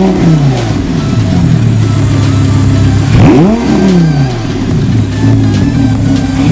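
Audi R8 V10 engine through a Fabspeed Supersport X-pipe valved exhaust with the valves closed, blipped twice from idle: a sharp rise in pitch right at the start and again about three seconds in. Each time the pitch falls back to a steady idle.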